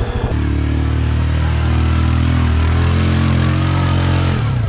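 Yamaha Grizzly 700 ATV's single-cylinder engine revved hard and held at high, steady revs for about four seconds while the quad digs in mud on a climb, then dropping back to a chugging idle near the end.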